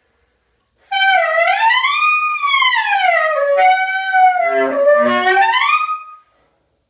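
Saxophone playing one long note that slides up and down in pitch, starting about a second in and breaking off shortly before the end, with a lower buzzing tone creeping in near the fifth second.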